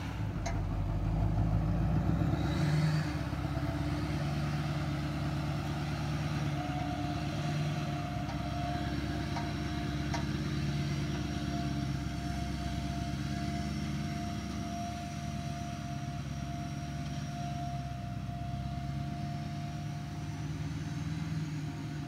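Dump truck engine running as the truck pulls away over rough dirt with its bed raised after tipping a load of gravel, slowly fading as it moves off. A thin steady whine joins it about six seconds in.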